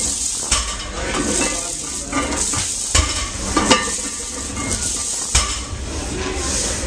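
Steel chains hanging from a loaded barbell rattling and clinking as the bar is pulled in quick deadlift reps. Several sharp knocks come as the plates set down.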